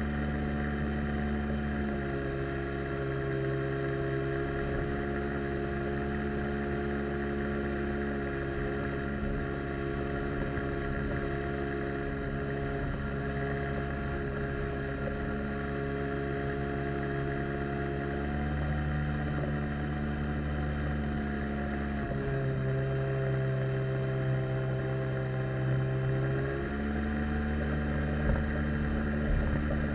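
Outboard jet motor pushing an inflatable boat along at a steady cruise. Its pitch drops and rises a little a few times as the throttle is eased and opened.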